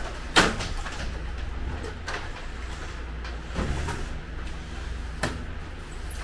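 Aluminum-framed glass sliding door panel being handled and set into its track: a sharp knock about half a second in, then a few lighter knocks and rattles of the frame.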